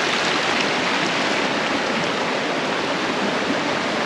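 A small rocky mountain creek rushing over stones: a steady, unbroken water rush.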